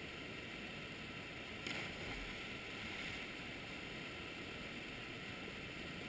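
Steady rush of water pouring over a canal lock's spillway into churning white water, with a brief splash about two seconds in as a person jumps into the foam.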